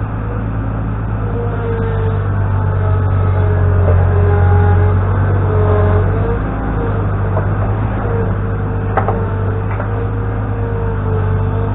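New Holland LX665 skid steer loader's diesel engine running steadily under work, a wavering whine over its low drone, swelling a little a few seconds in. A single sharp knock sounds about nine seconds in.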